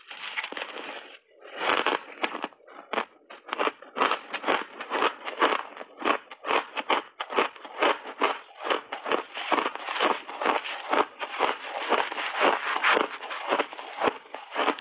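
Close-up crunching of a big mouthful of refrozen blended shaved ice being chewed, about three to four crunches a second. There is a longer gritty crunch of the bite in the first second.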